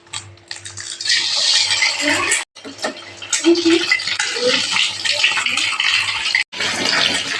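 Water running steadily from a kitchen tap, a rushing hiss with light clinks of pots and dishes, broken twice by short dropouts.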